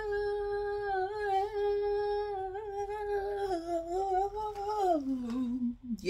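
A woman humming one long, held note that wavers slightly, then glides down to a lower note about five seconds in and stops.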